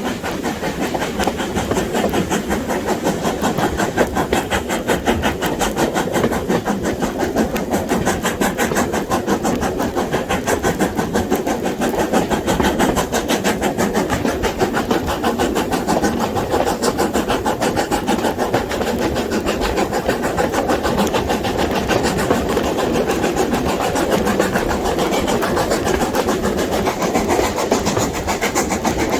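Passenger train running at speed, heard from aboard: a loud, steady rush with a fast, even pulsing beat.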